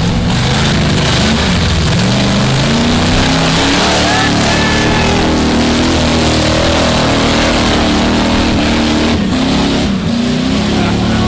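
Off-road Jeep's engine revving hard under load, the revs rising and falling, as it claws up a steep loose-dirt slope with its tyres spinning and throwing dirt.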